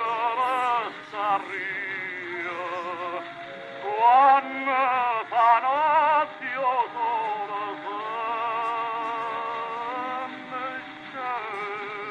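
A sung melody with strong vibrato, long held notes and short breaks between phrases, in an operatic style, over music.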